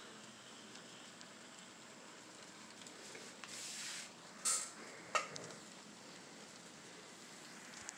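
Faint steady hiss of an N scale model locomotive running along the track, with a brief rush of noise and two short sharp knocks about four and five seconds in.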